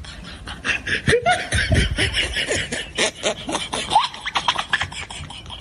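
A person laughing hard: a quick run of laughs that rise and fall in pitch.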